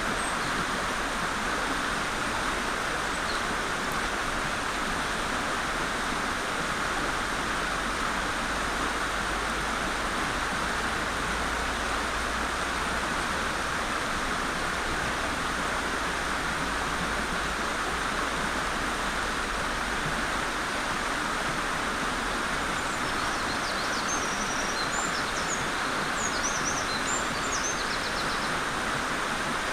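Mountain stream flowing steadily. About 23 seconds in, a Eurasian wren sings a few seconds of rapid, high-pitched notes over the water.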